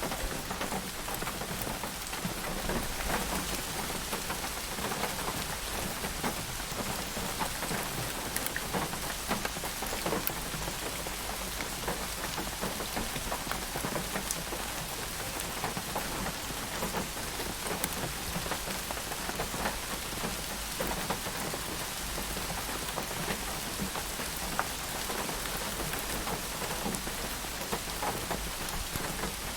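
Steady rain falling, with many individual drops striking a surface.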